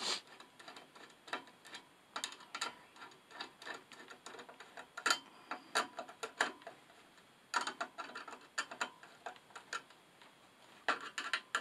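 A screwdriver tightening the cable clamp screws on a metal junction box: small irregular metallic clicks and ticks, coming in clusters with short pauses between them.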